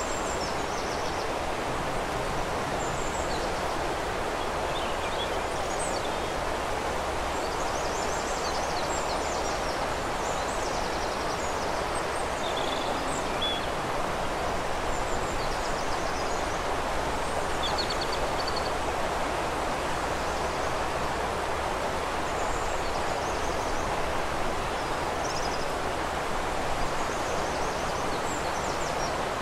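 Steady rushing of river water, with small birds chirping and singing in short, high phrases at intervals throughout.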